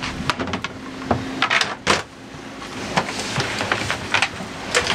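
A coil of red-and-yellow electrical cable being handled and fed through a boat's cabinetry: irregular rustles, scrapes and light knocks, with a louder scraping rustle near the middle, over a faint steady hum.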